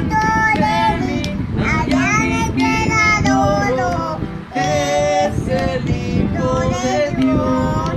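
A little girl singing a song, accompanied by a strummed acoustic guitar, with a short breath break about halfway through.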